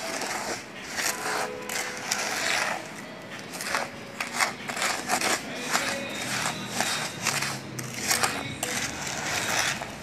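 Plastic spoon stirring and scraping dry semolina, sugar and ghee in a plastic bowl: a quick, irregular run of gritty scrapes.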